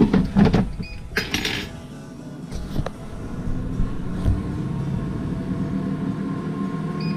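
Air fryer basket drawer handled and pushed back in with a clatter, then the air fryer's fan running with a steady hum from about two seconds in, and a short beep from its touch panel near the end as the timer is set.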